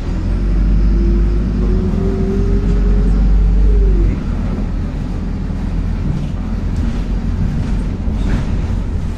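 City bus engine running, heard from inside the bus: a deep rumble with a whine that climbs slightly and then falls away about three seconds in, and the rumble eases about a second later.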